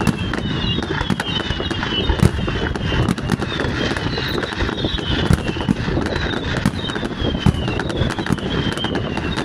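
Fireworks display: a steady rumble of bursting shells with many sharp bangs and crackles, and a string of short, high, falling whistles repeating every half second or so.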